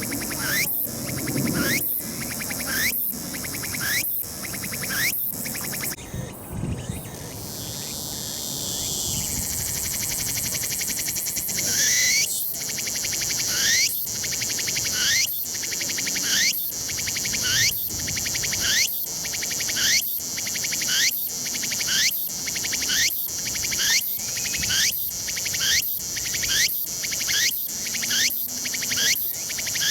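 Tsukutsukuboushi cicada (Meimuna opalifera) singing: a run of rapidly repeated rising phrases stops about six seconds in, a steady high buzz follows for several seconds, and then the repeated phrases start again, a little more than one a second.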